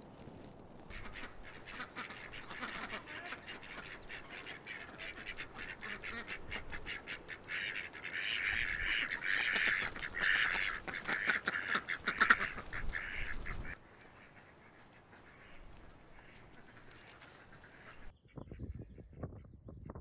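A flock of ducks quacking together in a dense, rapid chatter that grows busiest and loudest in the middle, then cuts off suddenly about fourteen seconds in.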